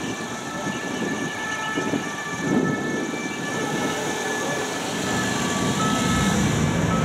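City road traffic with engines growing louder near the end, and a thin, steady siren tone held above it from an approaching emergency vehicle.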